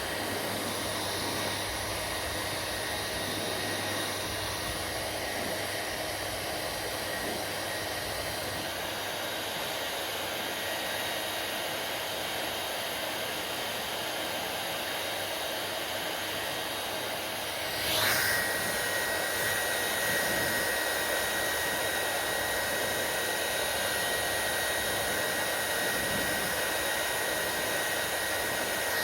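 Hair dryer blowing steadily, a continuous rushing of air with a faint motor whine. About two-thirds of the way through there is a short click, and after it the dryer runs a little louder with a clearer high whine, as if switched to another setting.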